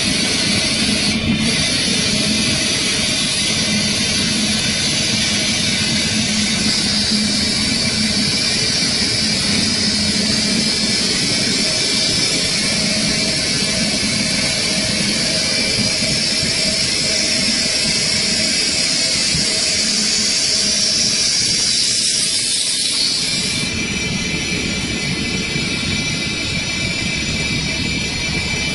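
Four-spindle CNC wood copy lathe running, its spindles and cutters turning wooden workpieces: a steady machine whir with a loud hiss of wood being cut. The hiss shifts slightly and gets a little quieter near the end.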